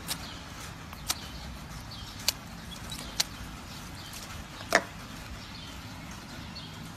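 Five sharp clicks, unevenly spaced about a second apart, the loudest near the end, over a steady low hum.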